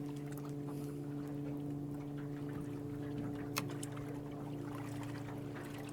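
Boat motor running steadily at slow trolling speed, a constant low hum, with one sharp click about three and a half seconds in.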